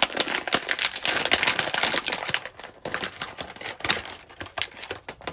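Crinkling and crackling of a toy's plastic packaging being handled and opened by hand: dense irregular crackles, thinning out near the end.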